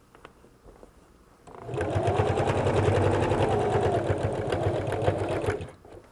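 Electric domestic sewing machine stitching through thick amautik fabric: after about a second and a half of quiet the motor speeds up into a steady run of rapid needle strokes for about four seconds, then slows and stops.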